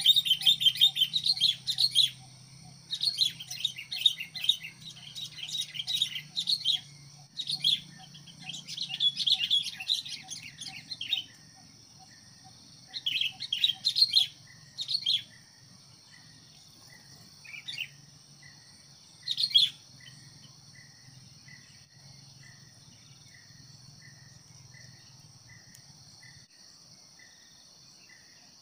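Sooty-headed bulbuls chattering in rapid, dense bursts for about the first eleven seconds, then only a few short calls until about twenty seconds in. For the rest, a steady insect hiss with a faint regular chirp about one and a half times a second.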